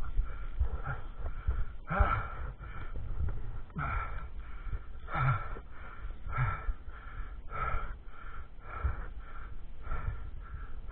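A dirt-bike rider breathing hard: heavy, ragged breaths about one a second, close to the helmet-mounted microphone.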